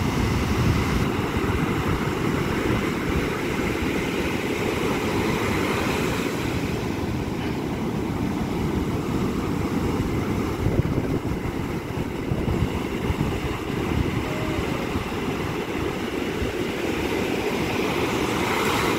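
Big ocean surf breaking on the shore: a steady, low, noisy rush with no distinct single crash.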